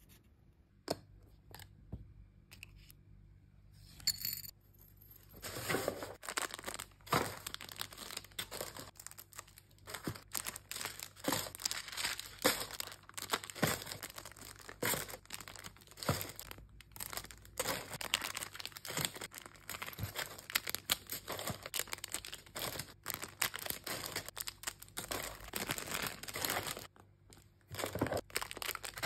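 Crinkling and rustling of clear plastic sleeves and tissue paper as small accessories are handled and packed into a box, with many light clicks. Only a few clicks for the first several seconds, then near-continuous crinkling from about five seconds in, with a short pause near the end.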